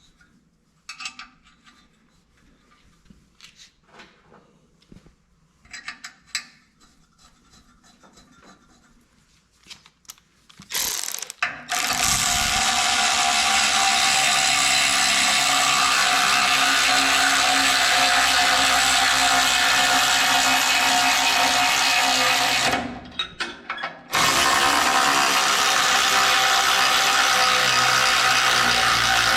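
A few light metal clicks as nuts are handled. Then a handheld power driver starts running jam nuts down threaded rod: a loud, steady whirring that stops briefly and starts again.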